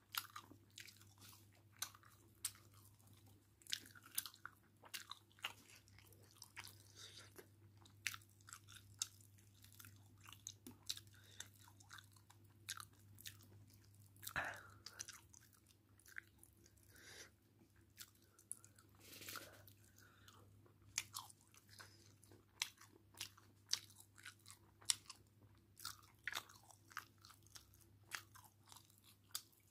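Close-up eating sounds: wet chewing and irregular lip smacks as someone eats meat curry by hand, with squishing as fingers pull the meat apart in the gravy.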